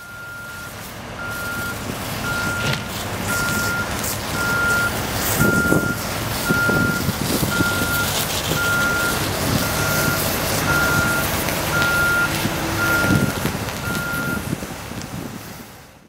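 Backup alarm on construction equipment beeping steadily at one pitch, about once a second, stopping near the end. Under it is a low engine drone.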